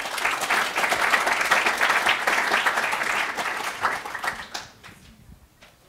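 Audience applauding, many hands clapping at once; the applause dies away about four and a half seconds in, leaving a few scattered claps.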